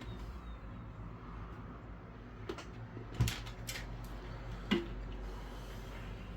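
Small metal repair tools clicking and tapping against a PS5 Slim's board while its HDMI port is being desoldered: four short, sharp ticks between about two and a half and five seconds in, over a steady low hum.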